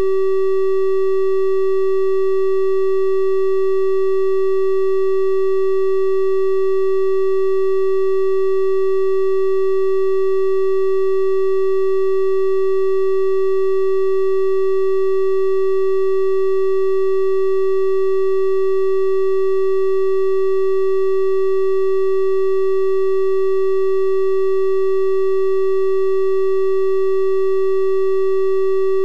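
A synthesized 384 Hz triangle-wave test tone, holding one steady pitch at constant loudness, with faint overtones that give it a slightly hollow, soft buzz compared with a pure sine.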